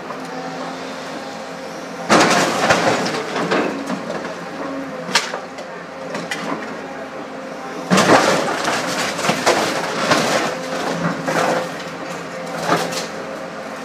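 Tracked scrapyard material handler's engine running steadily as its grab crushes a tipper truck's cab under a load of scrap cars. Metal crunches and glass breaks in two loud spells, about two seconds in and again from about eight seconds, with single sharp cracks between.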